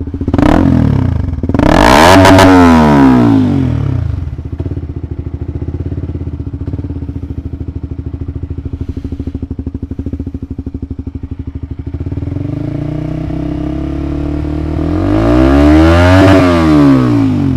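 Single-cylinder Honda CBR150R engine through an RX8 trioval aftermarket silencer, idling and revved hard twice, pitch climbing and then dropping back to idle each time: about two seconds in and again near the end. The exhaust note is soft and rounded.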